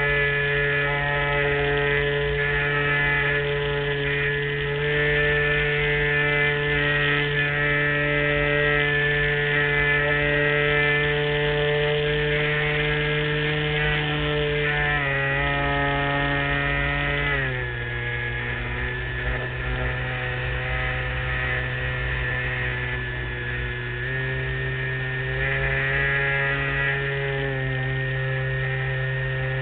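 LazyBee model airplane's motor and propeller running in flight, heard from on top of the wing as a steady drone. The pitch drops about halfway through, drops again a couple of seconds later as the throttle is eased back, and climbs again in two steps near the end.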